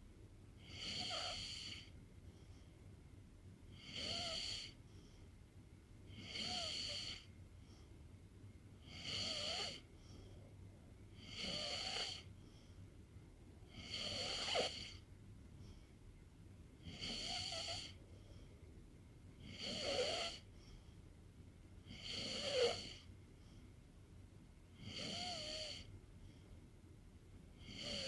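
A sleeping pet snoring in a steady rhythm, about one snore every two and a half seconds. Each snore is a hissing breath about a second long, with a wavering tone underneath.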